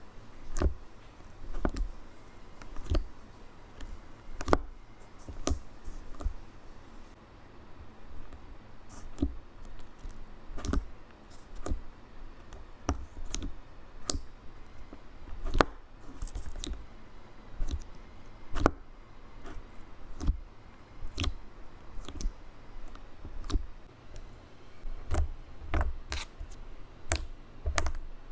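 Slime being pressed and poked by hand, with air pockets popping in sharp, irregular clicks, about one or two a second.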